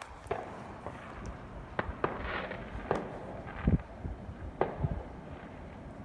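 Fireworks going off: a string of sharp bangs and pops at irregular intervals, with the loudest bang about two-thirds of the way through.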